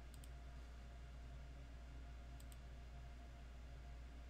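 Two computer mouse clicks about two seconds apart, each a quick pair of ticks, over a steady low hum.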